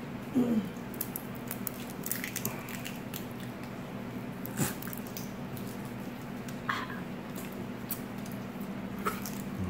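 Boiled crawfish being peeled and eaten by hand: shells cracking and wet meat squishing in scattered soft clicks and crackles, over a steady low hum.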